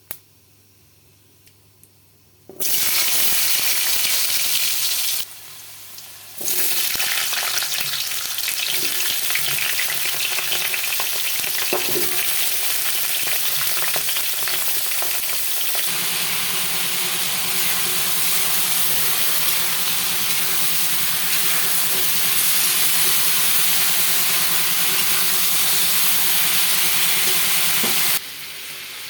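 Food sizzling as it fries in hot oil in a pan. It starts suddenly about two and a half seconds in, breaks off for about a second around the five-second mark, then carries on steadily until it drops away near the end.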